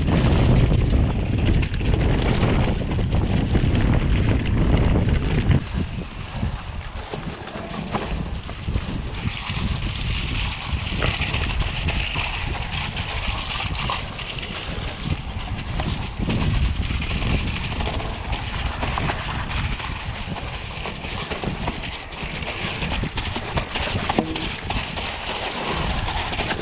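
Mountain bike riding down a muddy, leaf-strewn trail: heavy wind buffeting on the microphone for the first five or six seconds, then tyres rolling through mud and leaves with frequent clicks and rattles from the bike over the bumps.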